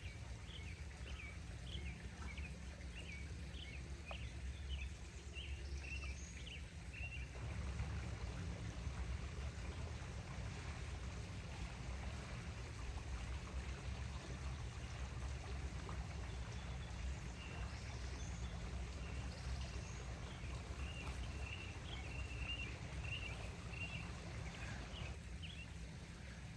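Pump oil being poured slowly through a funnel into a pressure-washer pump's crankcase, a faint trickle over steady low background noise. Short, faint, high chirps repeat for several seconds near the start and again in the second half.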